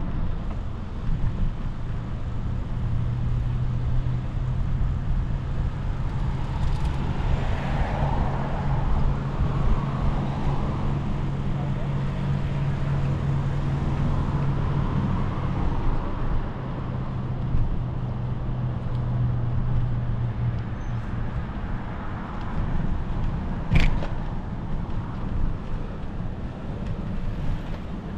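Riding noise of a bicycle on an asphalt bike path: a steady rumble and hum, with traffic on the road alongside swelling and fading. A single sharp knock comes near the end.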